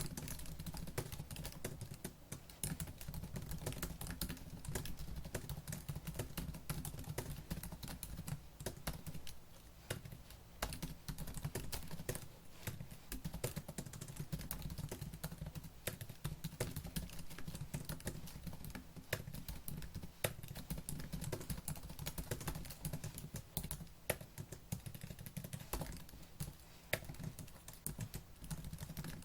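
Fast, continuous typing on a laptop keyboard: a dense stream of light key clicks with short pauses, over a steady low hum.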